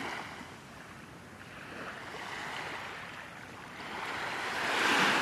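Small waves washing up on a sandy beach, swelling a little about two seconds in and louder near the end.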